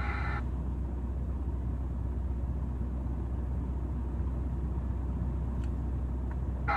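Static and hiss from a CB radio receiver on a sideband channel with no station transmitting, over a steady low hum. A station's signal cuts off about half a second in.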